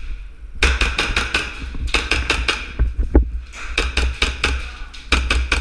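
Gas blowback airsoft MP7 firing in four bursts of rapid, sharp clacks, roughly nine or ten shots a second, with short pauses between bursts.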